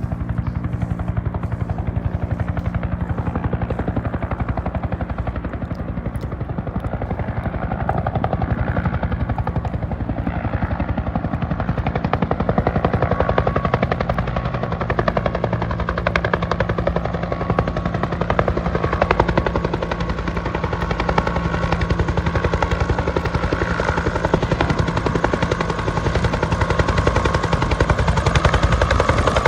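Helicopter with its rotor beating in a fast steady pulse, growing louder and brighter from about halfway through as it comes closer, with an engine whine coming up in the second half.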